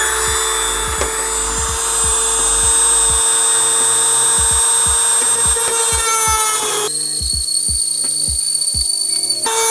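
Handheld rotary tool with a drum sanding bit running at high speed with a steady high-pitched whine, grinding out the edge of a hole in a carbon fiber hood. The sound changes abruptly about seven seconds in. Background music with a steady beat plays underneath.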